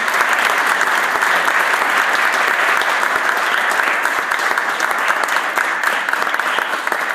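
A chamber full of people applauding: steady dense clapping that dies away at the very end.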